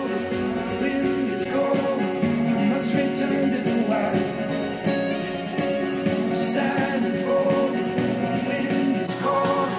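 A song with guitar and singing played over loudspeakers and picked up by microphones in the room: first through a pair of IK Multimedia iLoud MTM studio monitors, then through a pair of AirPulse A80 bookshelf speakers.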